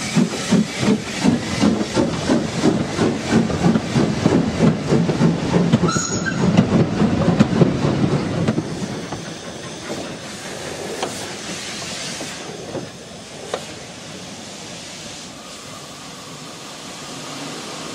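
Lancashire & Yorkshire Railway 'A' class 0-6-0 steam locomotive pulling away, chuffing in steady exhaust beats with a brief high squeak about six seconds in. After that the coaches roll past with clicks of wheels over the rail joints, fading to a quieter, steady train rumble.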